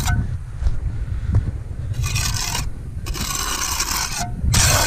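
Steel trowel scraping wet cement mortar along the top of a course of concrete foundation blocks in three strokes, the second the longest, trimming off the excess mortar squeezed out of the joints.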